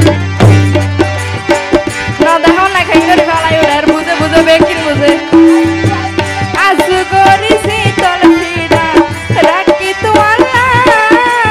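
Live folk band music: hand drums keep a busy rhythm under a melodic lead line with gliding notes, an instrumental interlude between sung verses of a Chittagonian folk duet.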